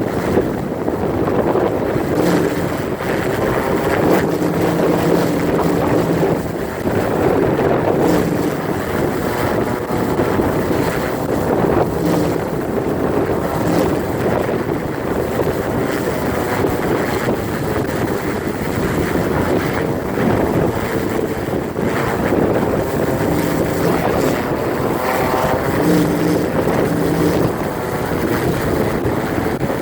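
Windmill spinning in a strong windstorm, giving an airplane-like drone with a low humming tone that comes and goes every few seconds, over heavy wind buffeting the microphone.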